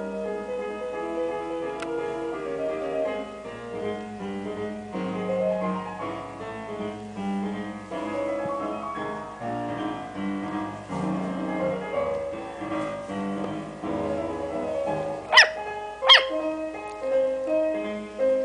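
Piano background music playing steadily. About three quarters of the way through come two short, loud, high-pitched yips from a Yorkshire terrier puppy, under a second apart.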